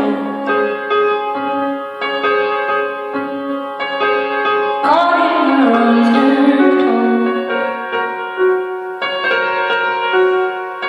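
Solo stage-keyboard piano playing slow, sustained chords, with a woman's voice singing long, gliding notes over it near the start and again about five seconds in.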